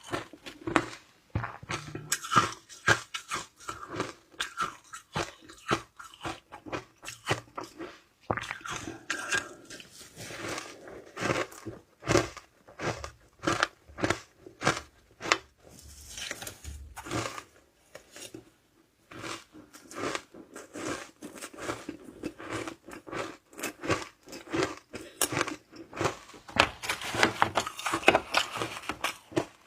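Close-up crunching and chewing of shaved ice in the mouth: a steady run of crisp, irregular crunches with short pauses between bites.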